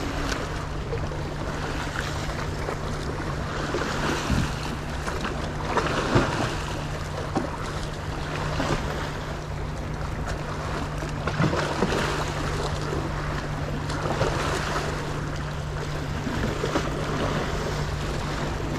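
Sea waves surging and washing over breakwater rocks, swelling every two to three seconds, with wind buffeting the microphone.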